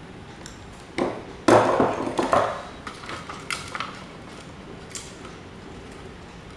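Hard objects knocking and clattering: a sharp knock, then a louder clatter of several hits about a second and a half in, followed by a few lighter clicks.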